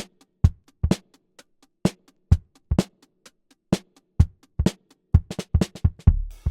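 Sampled acoustic drums from EZ Drummer 3 played live from keyboard keys: separate kick and snare hits, struck one at a time about two to three times a second with gaps between, not a steady groove. A low, ringing drum hit comes near the end.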